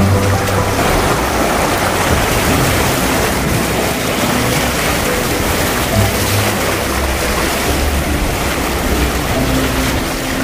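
A steady, loud rushing noise with faint background music underneath.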